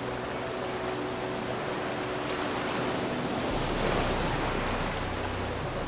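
Sea water rushing and splashing past the hull of a sailing catamaran under way, with wind on the microphone. A low wind rumble comes in about halfway through, and the rush swells a little soon after.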